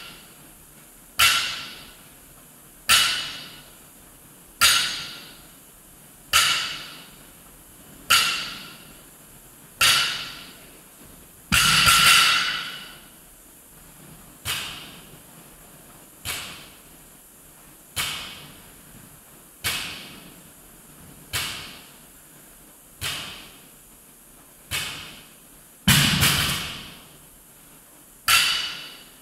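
Loaded barbell with bumper plates set down on a rubber gym floor on each deadlift rep: a thud with a short metallic ring about every second and three-quarters. Twice, about midway and near the end, there is a louder, longer clatter as the bar is dropped.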